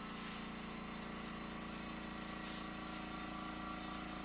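A new 1/5-horsepower TC-20 airbrush compressor running with a steady, even hum and no knocking: a healthy unit, set against the old one with shot bearings and a slapping piston.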